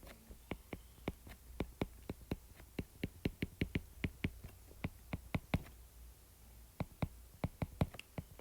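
A string of sharp, irregular clicks, several a second, with a short pause about six seconds in.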